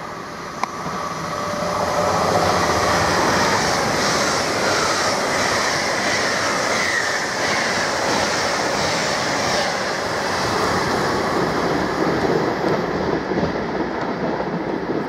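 LNER Class 800 Azuma high-speed train passing through at speed. The rush of wheels on rail and air builds over the first couple of seconds and stays loud as the carriages go by, with a regular clatter from the wheels. It then eases near the end as the train draws away. There is a single sharp click shortly after the start.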